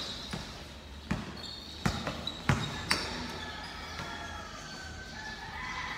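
Basketball bouncing on the court floor during a game: about five sharp bounces in the first three seconds, then quieter.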